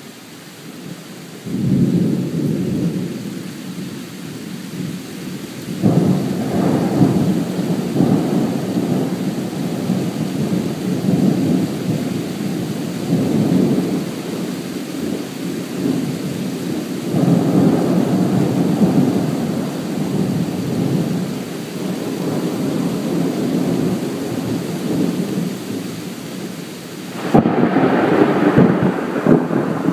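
Thunder rumbling in long rolling peals, with fresh claps setting in about a second and a half in, around six seconds in, and again near the end, the last one the loudest.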